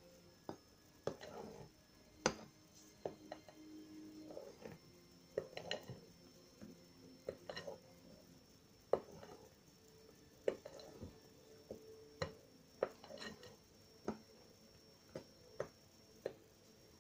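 Light, irregular clicks and taps, about one or two a second, of a utensil knocking against a metal mesh sieve and glass mixing bowl as flour is sifted onto sponge-cake batter.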